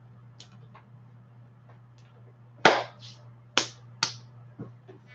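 Three sharp hand claps, the last two close together, with a few softer taps around them.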